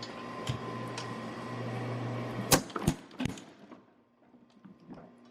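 Power hammer running with a steady hum, then striking three sharp blows in quick succession about two and a half seconds in, the first the loudest, as it drives a fullering tool into a hot hammer head.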